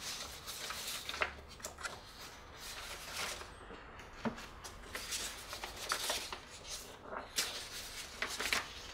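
Steel gearbox parts being handled: irregular clicks, light knocks and rubbing as the gear shafts and a shift fork are worked into the open aluminium case of a Peugeot BE4 gearbox.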